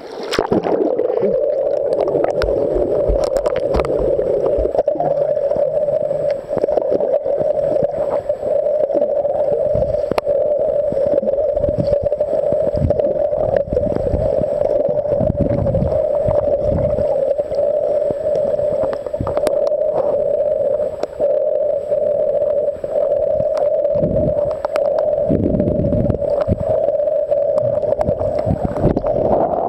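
Muffled underwater sound picked up by a submerged camera: a steady drone with low rumbles and occasional knocks.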